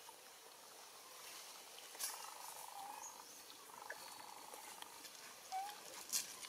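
Faint animal sounds: two brief soft squeaky calls, one a little under halfway through and one near the end, with a couple of sharp clicks.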